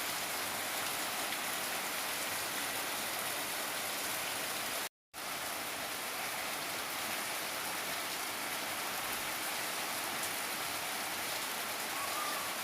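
Steady rain falling, an even hiss of drops hitting surfaces; the sound drops out completely for a split second about five seconds in, then carries on unchanged.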